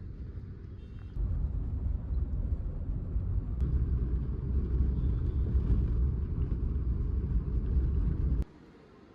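Steady low rumble of a moving vehicle heard from inside, growing louder about a second in and cutting off abruptly near the end.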